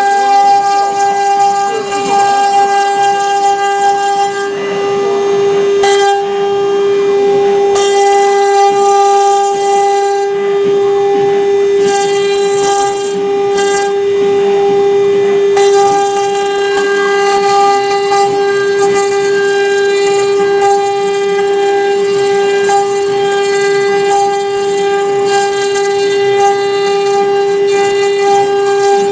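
CNC router's 3 kW water-cooled spindle running at speed with a steady, unwavering whine, and a hiss of the bit cutting into MDF that rises and falls as the machine engraves.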